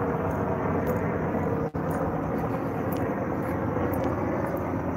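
Helicopter overhead, a steady drone of rotor and engine, cutting out for a split second about a second and a half in.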